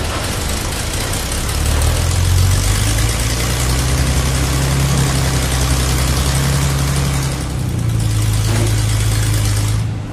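Tractor engine sound running steadily at a low idle, with a constant hiss over it, laid over a toy tractor that is pulled on a string and has no engine.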